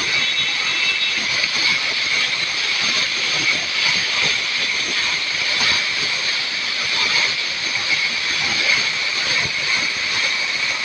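Flooded river in spate rushing over a crossing: a loud, steady roar of fast whitewater.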